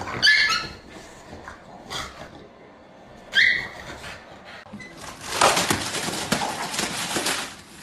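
A dog whimpering: two short, high-pitched whines, one at the start and one about three seconds in. About five seconds in, a stretch of rough, scuffling noise follows.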